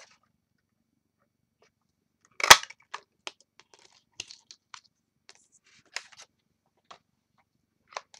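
A 2-inch circle paper punch snaps once through cardstock with a sharp click about two and a half seconds in, followed by light paper rustles and small taps as the cut circle is handled and laid down.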